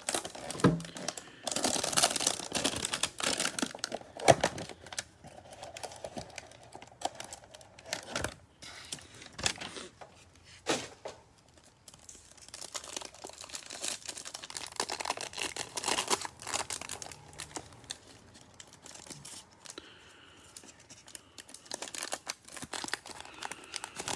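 A cardboard trading-card hanger box being torn open, then the plastic wrap around a stack of cards crinkled and peeled away: irregular tearing and crackling with sharp clicks, busiest in the first few seconds.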